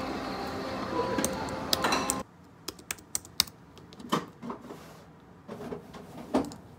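A busy background din that cuts off abruptly about two seconds in, followed by a quieter stretch of sharp, irregular clicks and taps, about a dozen, some louder than others.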